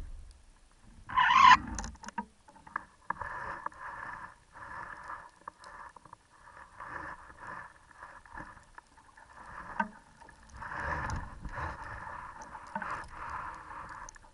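Water rushing and slapping against the hull of a small sailing dinghy under way, rising and falling unevenly, with one much louder rush about a second in.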